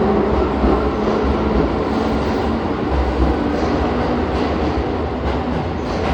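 Keihan electric train running, heard from inside a passenger car: a steady rumble of wheels on rails with a faint motor hum, and a few light clicks near the end.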